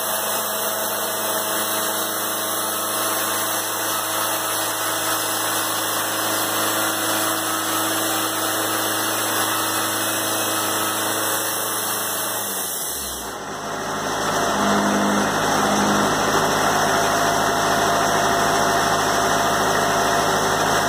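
Wood-Mizer band sawmill running steadily as its sawhead travels along the boards, edging them. About 13 seconds in, the pitch drops and the sound dips briefly, then it picks up again, a little louder and steady.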